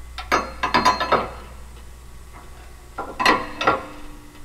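Metal clinks and knocks as the assembled Salisbury differential carrier, with its bearings and shims, is worked into the spread axle housing: a quick cluster of sharp, ringing clinks near the start and another about three seconds in.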